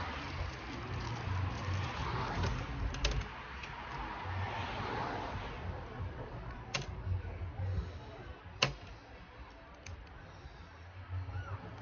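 A few scattered sharp clicks and light taps over a low rumble, typical of screws and tools being handled while a roof fan is made ready to screw down.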